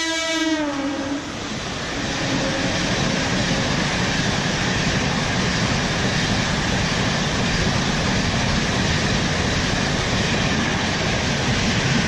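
A train horn ending in the first second, its pitch falling as it fades, followed by the steady rushing rumble of a passing train.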